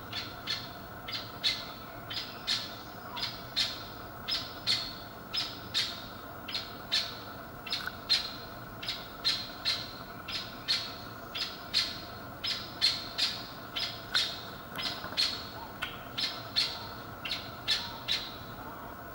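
Barbary partridge giving its mating call: a short call repeated about twice a second in a long, regular series that stops near the end.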